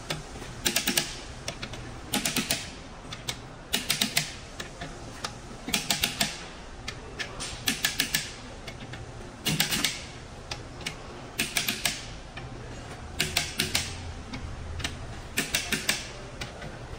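Ratchet wrench clicking as bolts on the main bearing caps of a Komatsu SA6D125 diesel engine block are run down, in short bursts of quick clicks about once a second.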